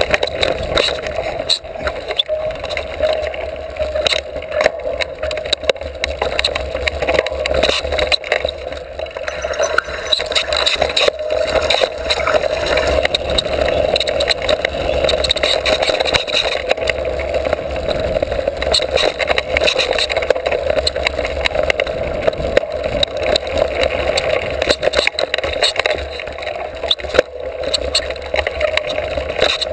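Mountain bike riding fast over a dirt singletrack, heard from an on-board camera: a steady rush of wind and tyre noise broken by frequent short rattles and knocks as the bike hits bumps.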